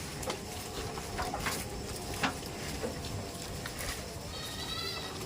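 Goats moving about: scattered light knocks and clicks, with a short high-pitched call near the end.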